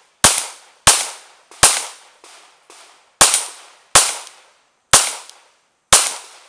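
Glock 17 9mm pistol firing seven shots at an uneven pace, from about half a second to a second and a half apart, each a sharp crack with a short echo. Two much fainter pops fall in the longer pause after the third shot.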